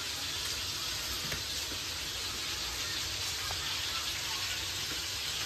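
Chicken pieces frying in oil and butter in a kadhai on a gas stove: a steady sizzle.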